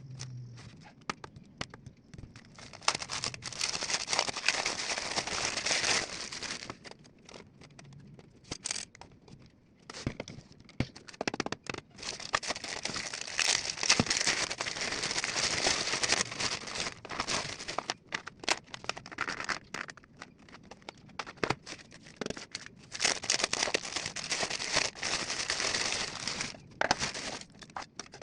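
Toy packaging being crinkled, torn open and handled, in stretches of dense crackling several seconds long with scattered clicks and quieter gaps between them.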